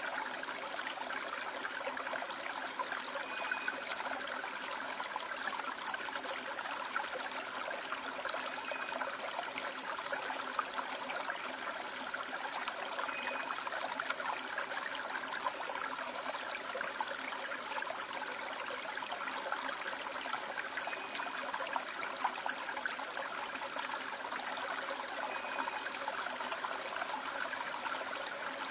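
River water rushing steadily over and between rocks in a rocky valley stream.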